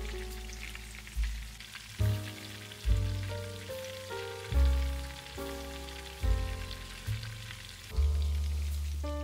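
Food frying in a pan, a fine sizzle and crackle, under slow instrumental background music with deep bass notes that change about once a second.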